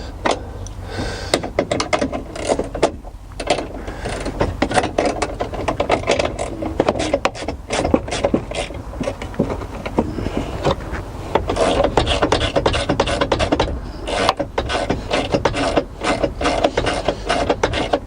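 Hand ratchet wrench clicking rapidly in long runs as long bolts are wound out of the steering column brackets.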